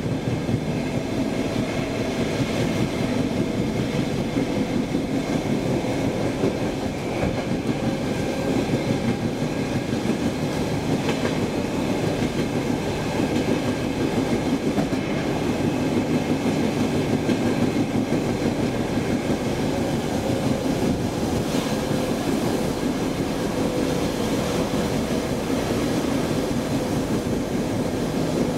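Saltsjöbanan C10 electric train heard from inside the carriage while running at speed: a steady rumble of wheels on rails with a faint, even whine.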